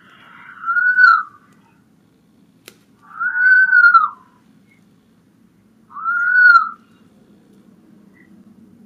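Recording of a red fox calling: three high, clear calls, each rising and falling in pitch and lasting under a second, about three seconds apart.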